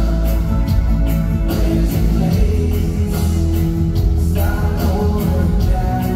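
Live reggae band playing loud through a concert PA: heavy bass, electric guitar and drums on a steady beat.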